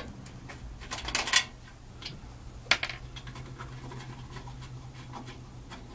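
Clicks and scrapes of a PC case's side panel being unlatched and taken off: a cluster of knocks and scraping about a second in and a sharp click a little before three seconds, with smaller ticks after, over a low steady hum.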